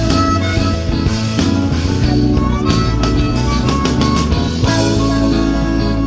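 Music from a mellow jazz-rock song: the band plays a sustained melodic lead over a steady bass line, with no singing.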